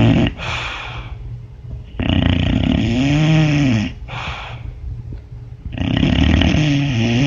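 A dog snoring loudly in a slow, even rhythm. Each long snore carries a buzzing tone that rises and falls in pitch and is followed by a short, breathy puff, repeating about every four seconds.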